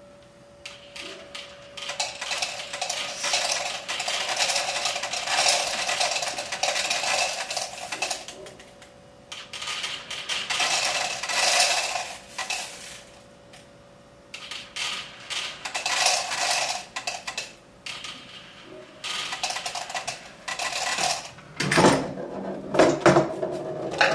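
Metal BBs poured from a jar into a plastic funnel, rattling down through tubing in four long pours. In the last few seconds, louder knocks and clatter as the machine's lever releases and the balls roll and drop down its wooden ramps.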